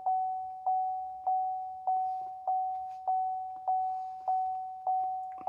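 The 2014 Chevrolet Silverado's dashboard warning chime dinging over and over, one ding a little more than every half second, each ringing down before the next.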